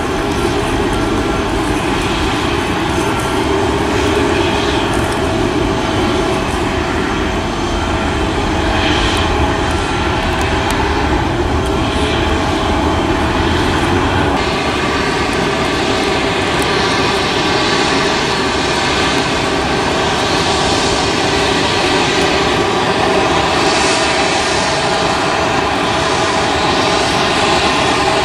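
Steady jet aircraft noise at an airport: a constant rumble with steady whining tones on top. The sound changes abruptly about halfway through.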